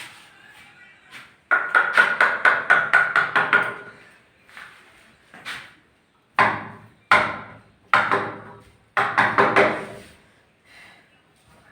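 Hammer blows: a fast run of about ten strikes starting a second and a half in, then single strikes and another short quick run.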